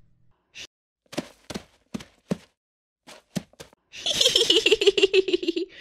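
A few short, soft thuds, unevenly spaced. Then, about four seconds in, a cartoon witch's voice breaks into a high, rapid cackling laugh.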